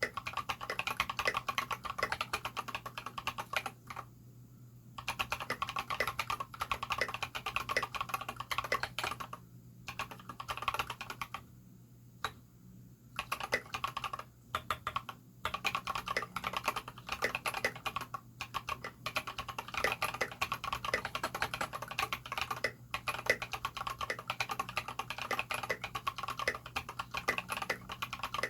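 Mechanical keyboard with Holy Panda tactile switches and SA-profile keycaps being typed on in quick runs of keystrokes, with a few brief pauses. A faint steady low hum lies underneath.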